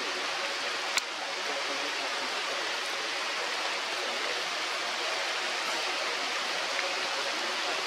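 Steady, even hiss of outdoor forest ambience, with one sharp click about a second in.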